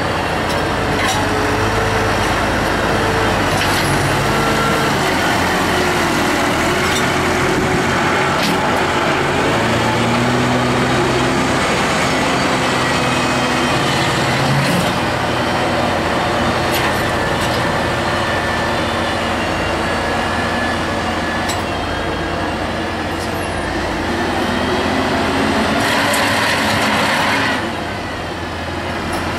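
Farm tractor's diesel engine working a front-mounted silage fork on a silage pit, its note rising and falling with the load, with occasional clanks. Near the end it is louder for a second or two, then drops off suddenly.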